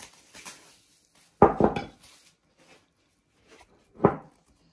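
A kitchen bowl being handled on a worktop: a short clatter of knocks about a second and a half in, then a single knock near the end.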